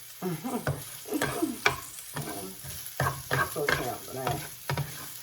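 A spoon stirring vegetables in a frying pan of hot oil, with irregular scrapes and knocks of the spoon against the pan over steady sizzling.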